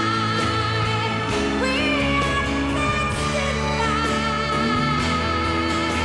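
A woman singing a pop song live with a band, holding long notes with a wavering vibrato over electric guitar and sustained low accompaniment.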